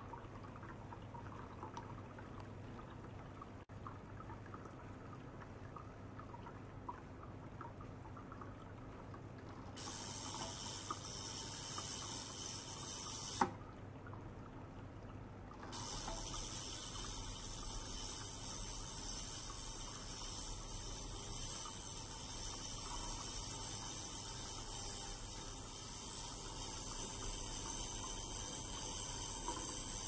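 Liquid circulated by a small pump trickling into a glass jar standing in an ultrasonic cleaner bath. About ten seconds in, a loud, steady high hiss of the ultrasonic cavitation starts, cuts off suddenly for about two seconds and comes back with a low hum under it.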